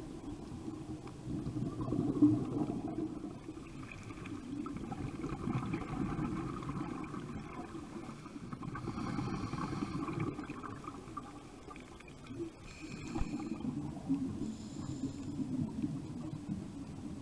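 Muffled underwater sound of scuba diving: regulator breathing and exhaled bubbles rumbling and gurgling in swells, with two brief high tones near the end.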